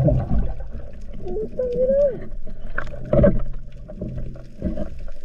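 Muffled underwater sound of a freediver moving through the sea: water rushing and bubbles, with loud surges at the start and about three seconds in. A steady low hum runs underneath, and a short wavering tone comes about one and a half seconds in.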